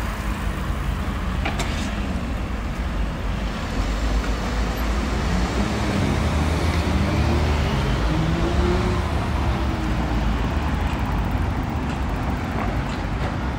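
Road traffic: cars and other motor vehicles running along a multi-lane city road, a steady low rumble. One engine's pitch climbs and then drops, loudest about eight to nine seconds in.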